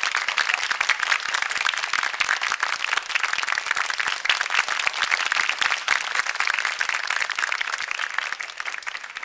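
Studio audience applause: many hands clapping densely and steadily, dying down over the last second or so.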